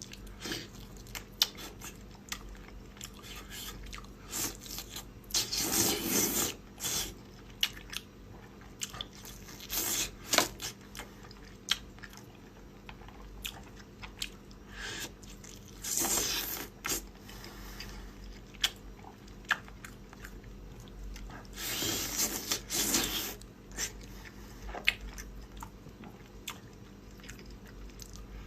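Close-miked mukbang eating sounds: chewing and crunching with many sharp little bite clicks, and several louder bursts lasting about a second each.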